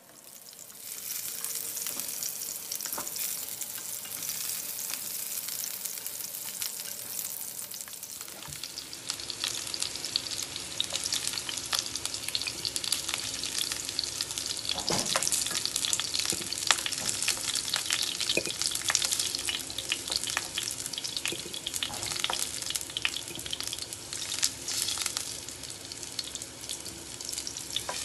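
Small whole potatoes sizzling and crackling in hot oil in a nonstick frying pan as they brown, starting about a second in. A wooden spatula scrapes and knocks against the pan now and then as they are turned.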